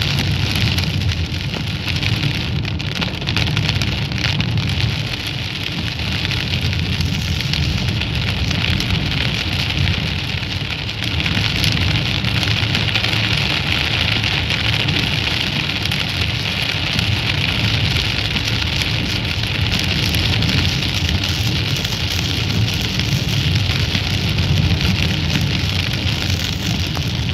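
Rain falling on a car's roof and windshield, heard from inside the car as a steady, dense patter with a low rumble underneath.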